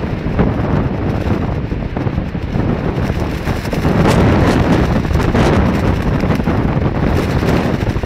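Strong gusting wind buffeting the microphone, with a thin clear plastic raincoat flapping and crackling in it. The gusts grow louder about four seconds in, and the plastic's crackles come thicker from there.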